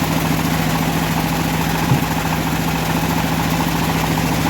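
Engine of a homemade bandsaw mill running steadily at an even pitch, with one short knock about two seconds in.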